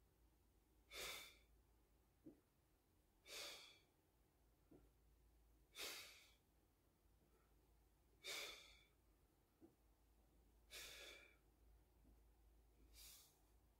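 A man's faint, rhythmic exhales while doing V-sits, one breath per rep about every two and a half seconds, six in all. A few light taps come between the breaths.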